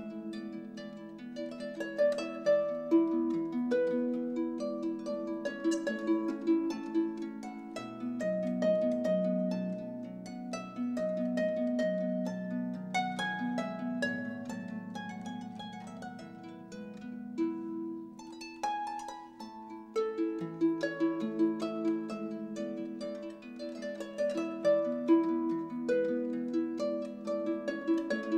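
Instrumental music: quick plucked, harp-like notes over held low notes.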